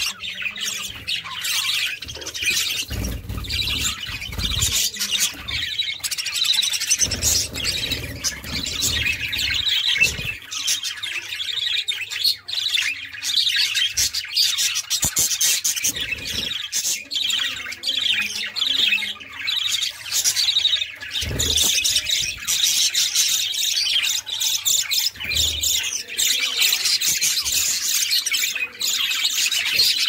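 A flock of budgerigars chattering and chirping without pause, many birds calling over one another, with a few low thuds now and then.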